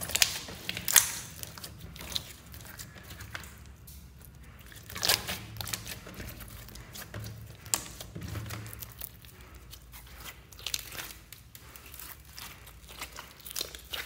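Hands kneading and pressing a clear glitter slime, giving irregular wet squishes and sharp little pops as trapped air is squeezed out.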